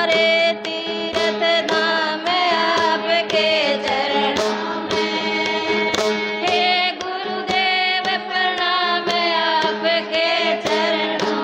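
A woman singing a Hindi devotional bhajan, the melody wavering over a steady drone, with sharp rhythmic strikes roughly twice a second.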